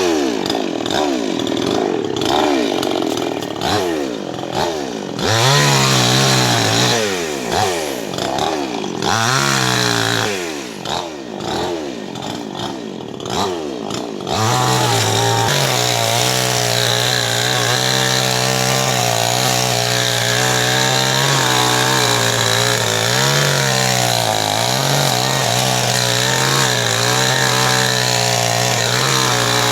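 Two-stroke chainsaw being revved up and down over and over, then from about halfway held at high revs in a steady run with small dips, as when cutting into wood.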